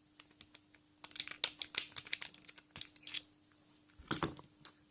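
Small metal padlock parts clicking and tapping as they are handled and fitted together during reassembly. The quick, irregular clicks are thickest for a couple of seconds after the first second, with a short rattle of clicks near the end.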